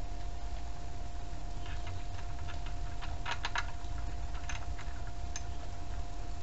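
A quick run of small sharp clicks and taps, thickest about two to three and a half seconds in, with a couple more later, over a steady thin whine and low rumble.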